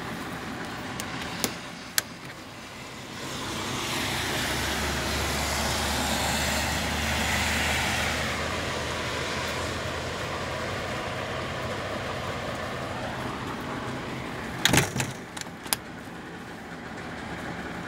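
Utility crew's heavy vehicle or machinery running at night, swelling louder a few seconds in and easing off again with a falling tone. A couple of sharp knocks near the start and a short cluster of loud bangs about fifteen seconds in.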